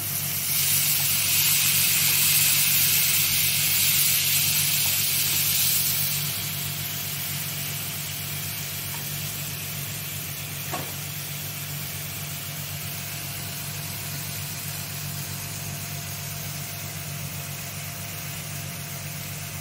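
Onion, tomato and spice paste sizzling as it fries in oil in a nonstick pan while it is stirred with a wooden spatula. The sizzle is loud for the first six seconds or so, then settles to a softer steady hiss over a steady low hum.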